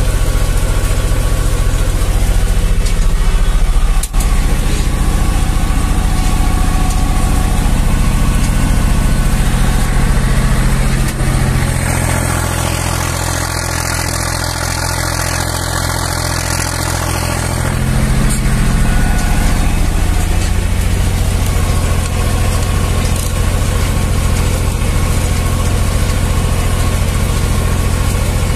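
Zetor 5011 tractor's three-cylinder diesel engine running steadily under load as it pulls a two-furrow plough, heard from the cab. About eleven seconds in, the engine note changes and drops a little for several seconds, then returns to its earlier steady note.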